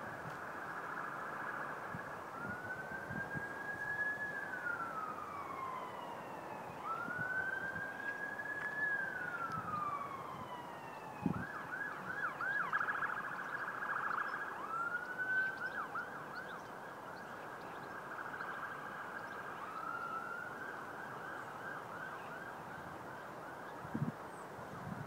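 An emergency vehicle siren, rising and falling slowly twice, then switching to a fast warble with a few shorter rises after, over a steady background hiss. Two dull thumps, about eleven seconds in and near the end.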